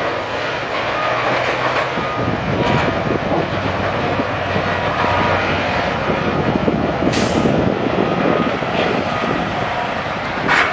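Sawmill machinery running, a loud, steady rattling din with occasional knocks. A short hiss comes about seven seconds in, and another brief burst near the end.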